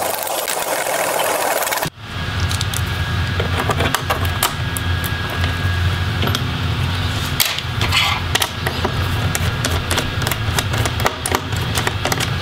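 A small Phillips screwdriver and hands working the screws of a laptop's plastic bottom cover: irregular light clicks and taps over a steady low hum. An even hiss stops abruptly about two seconds in.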